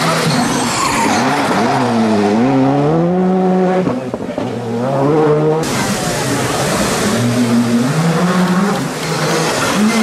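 Rally car engine revving hard and dropping back again and again as the car brakes and accelerates through a tight tarmac turn. Its pitch rises and falls several times with throttle and gear changes.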